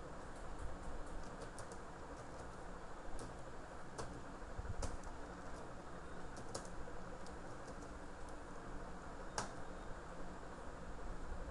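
Computer keyboard being typed on: scattered, irregular key clicks with short pauses between bursts, over a steady faint background hum.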